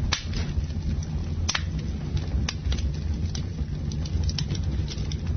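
Campfire burning, with sharp irregular crackles and pops over a steady low rumble of the flames.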